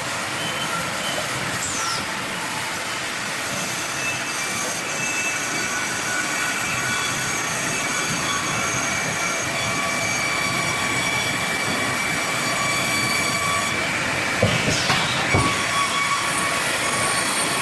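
Sawmill saw running through wood: a steady loud rushing noise with thin, held high whining tones over it, and a few sharp knocks about fifteen seconds in.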